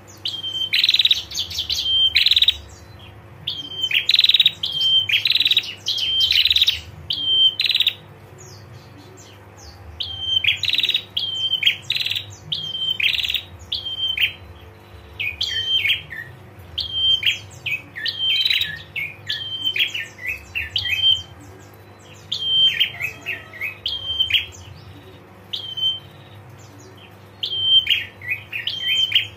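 Female prenjak giving its rapid 'ngetir' call: quick runs of sharp, high chirps and chattering trills, repeated in bursts about every second with short pauses between runs.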